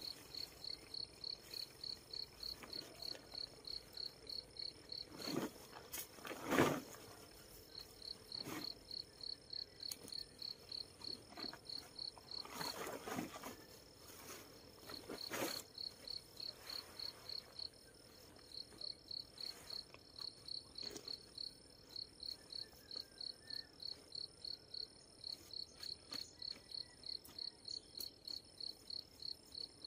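A cricket chirping in runs of about four high chirps a second, pausing now and then, over a faint steady high whine. A striped plastic tarpaulin rustles several times as it is handled and folded, loudest about six and a half seconds in.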